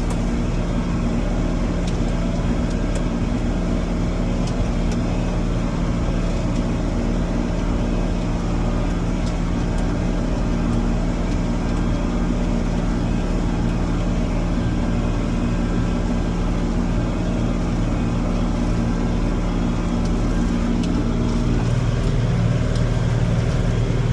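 Tractor engine running steadily while mowing, a little louder near the end.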